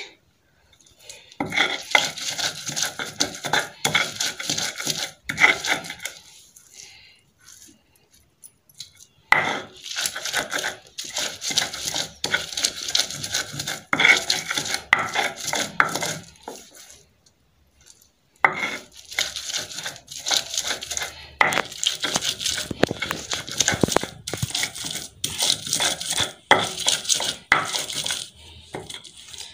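A stone grinding stone (lohoro) rubbed and rocked back and forth on a flat stone slab (silauto), crushing ingredients into paste with rapid gritty scraping and knocking strokes. The grinding comes in three long runs, with pauses about a third of the way in and again a little past halfway.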